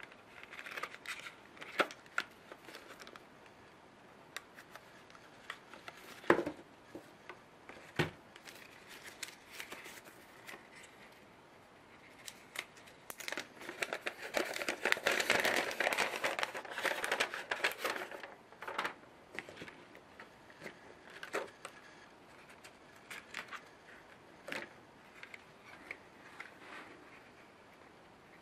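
Paper leaflets and clear plastic packaging handled by hand: intermittent rustling and crinkling, with a few sharp clicks and taps in the first third. There is a longer, louder stretch of paper rustling about halfway through as a folded leaflet is handled.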